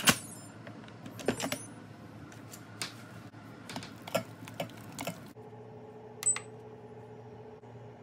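A sharp clack as the Instant Pot lid is handled and lifted, then light knocks and scrapes of a silicone spatula stirring vegetable stew against the stainless steel inner pot. After about five seconds a low steady hum sets in, with a short high beep a second later.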